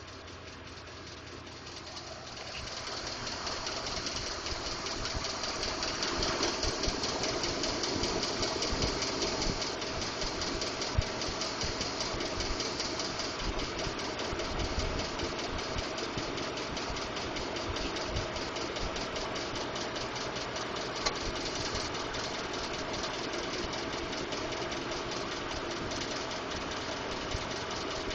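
2012 Ford F-150's 5.0-litre V8 idling with a fast, steady ticking or knocking, which Ford has diagnosed as normal. It grows louder over the first few seconds, then holds steady.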